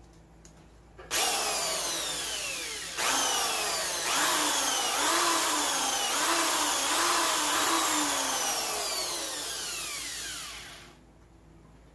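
Corded electric drill working into a hockey skate's plastic toe cap. It starts about a second in, its speed drops and picks up again several times, and it winds down and stops near the end.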